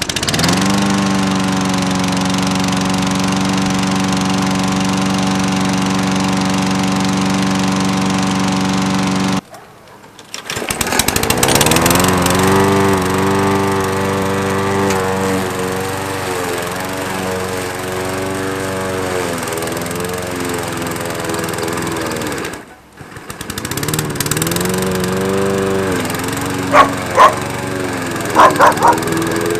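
Briggs & Stratton 190 cc single-cylinder lawn mower engine running, first steady, then with its pitch wavering up and down. The sound breaks off twice briefly and comes back. A dog barks several times near the end.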